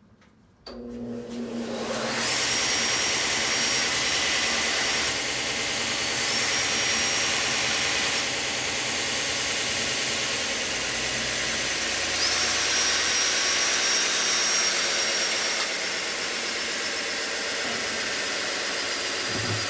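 A grinder's motor spinning up about a second in and running steadily while a TIG tungsten electrode is resharpened on it after being contaminated in the weld pool, with a thin high whine that comes and goes three times.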